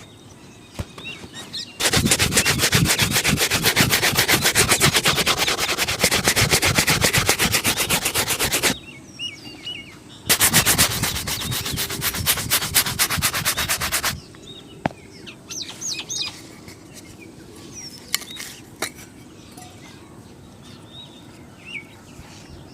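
Shoe being buffed with a shoe brush in rapid back-and-forth strokes, in two spells of about seven and four seconds. Birds chirp in the pause and afterwards.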